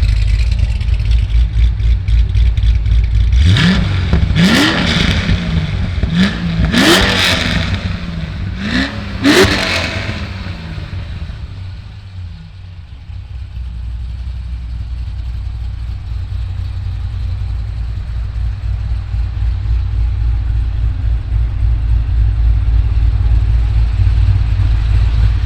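A cammed LS7 7.0-litre naturally aspirated V8 in a C6 Corvette Z06 idles with a choppy, lumpy beat from its aggressive camshaft. It is blipped about six times in quick succession, each rev rising and dropping back, then it settles into a steady idle.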